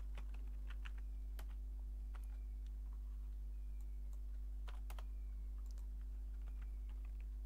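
Computer keyboard keystrokes: scattered, irregular taps as a word is typed, over a steady low hum.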